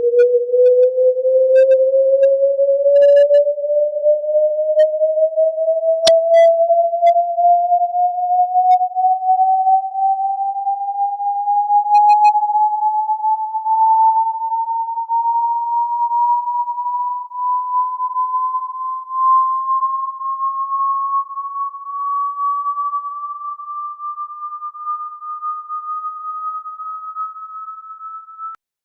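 A single pure electronic tone rising slowly and steadily in pitch for nearly half a minute, growing gradually fainter and cutting off abruptly near the end. A faint click sounds about six seconds in.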